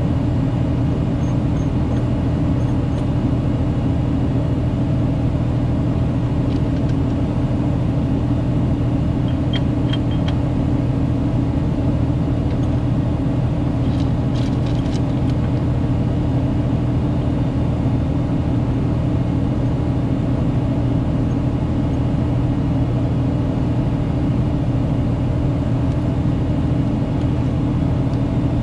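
An engine runs steadily at one constant speed, a low, even drone. A few light clicks come through about ten and fifteen seconds in.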